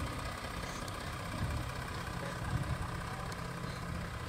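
Volkswagen Amarok Canyon's 3.0-litre V6 turbo diesel idling steadily.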